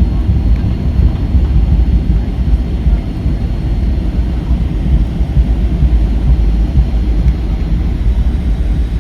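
Inside the cabin of a Boeing 757-300 with Rolls-Royce RB211 engines: a loud, steady low rumble of engine and airflow noise.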